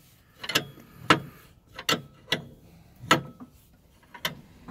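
Sharp metallic clicks, six in all at uneven spacing, from wrench work on the combine's rotor drive.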